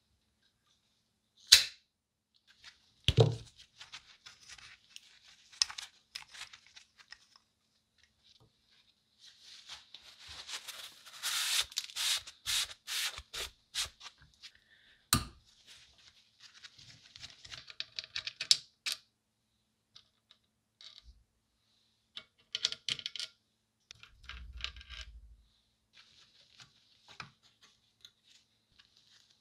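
Hands working on an old Leland electric motor: scattered clicks and knocks of metal parts, and rustling and scraping from gloved hands and tools. There is a dense stretch of scraping in the middle. Near the end a screwdriver works at a metal plate inside the motor's end housing.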